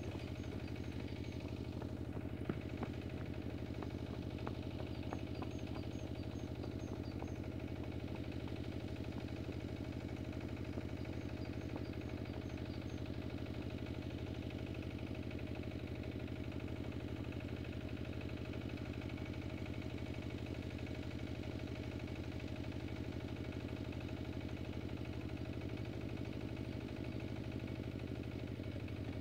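Engine of a Zubr 12 hp walk-behind tractor running steadily at an even idle, with no change in speed or loudness.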